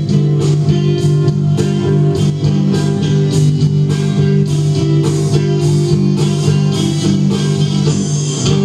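Live band playing: guitars and bass over a steady drum beat.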